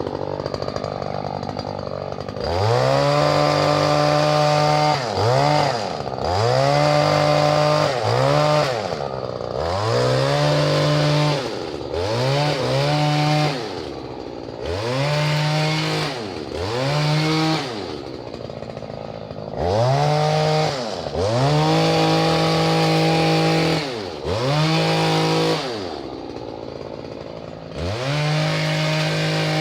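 Stihl KM94RC two-stroke multi-tool engine driving its hedge trimmer attachment while trimming a privet hedge: it idles for a couple of seconds, then is revved up and let back to idle about a dozen times, each burst held for one to two seconds.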